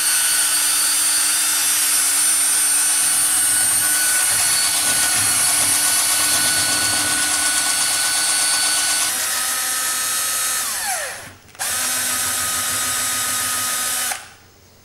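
Electric drill spinning a mixing paddle through a cup of tinted resin, running steadily. About eleven seconds in it winds down and stops, then runs again for about two seconds before stopping.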